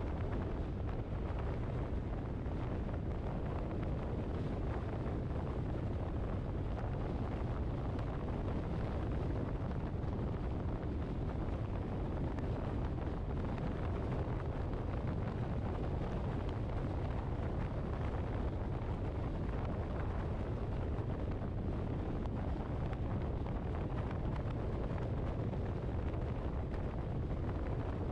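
Steady rumble of wind and road noise from a vehicle on the move, with wind buffeting the microphone.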